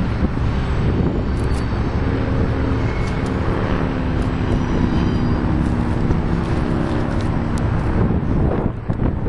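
Union Pacific double-stack container train rolling past: a steady rumble of wheels on rail, with scattered sharp clicks.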